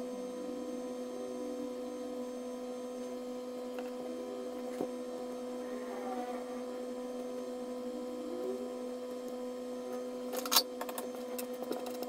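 Steady electrical hum, with a few light handling clicks about ten seconds in.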